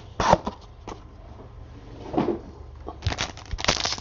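Cards and packaging being handled: scattered light clicks and knocks, then dense crinkling and rustling of plastic wrapping from about three seconds in.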